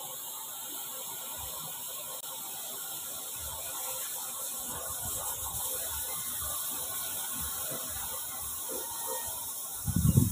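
Rocket candy fuel grain (potassium nitrate and sugar, 70/30) burning in the open: a steady hissing fizz with irregular crackling and popping that grows busier after a few seconds. The burn is incomplete, leaving unburnt potassium nitrate, which the maker puts down to too much sugar or poor mixing. A louder low rush comes in at the very end.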